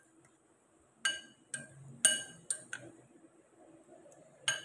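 Metal spoon clinking against a glass mixing bowl while stirring soaked bread cubes: about six ringing clinks, starting about a second in and coming irregularly, the last near the end.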